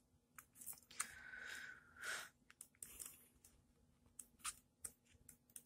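Faint rustle and soft flicks of a paperback book's pages being turned by hand, with a longer sliding rustle about a second in and scattered light ticks later on.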